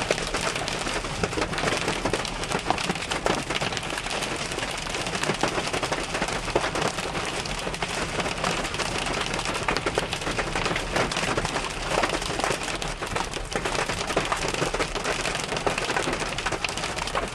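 Hail and heavy rain pelting a car, a dense, steady clatter of many small hits.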